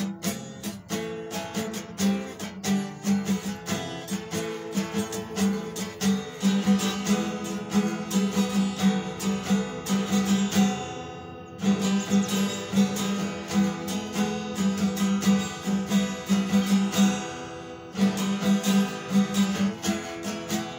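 Acoustic guitar being strummed in a steady rhythm. Twice the strokes stop briefly and the chord is left ringing.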